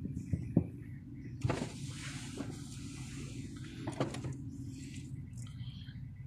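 A Mitsubishi car's power window motor runs for about three seconds, lowering the driver's window glass, with a click as it starts and another as it stops. A low, steady rumble continues underneath in the car cabin.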